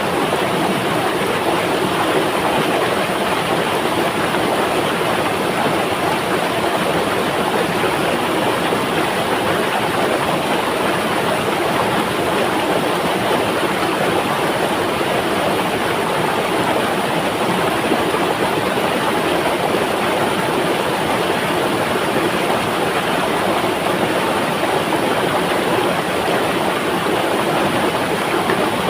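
Flowing river: a steady, even rush of running water that keeps one level throughout.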